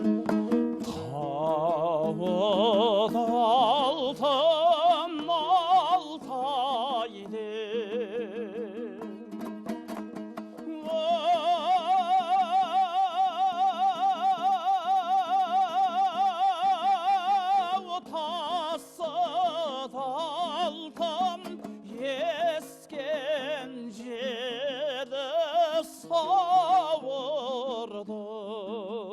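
Kazakh folk music: plucked strings over a steady low drone, with a melody line that wavers in pitch and holds one long note in the middle.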